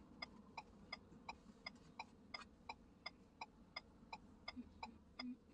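Car turn-signal indicator ticking, a faint, even run of about three clicks a second, over a low steady hum of the idling car.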